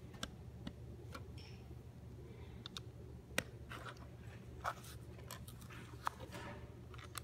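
Small clicks and taps of plastic LEGO bricks being handled and pressed onto a round LEGO plate, with a few soft rustles; the sharpest clicks come about three and a half and six seconds in.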